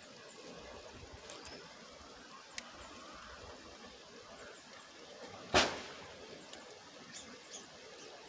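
Metal camp pots and kettles handled at a small fire: faint clicks over a steady low hiss, with one sharp, loud knock about five and a half seconds in.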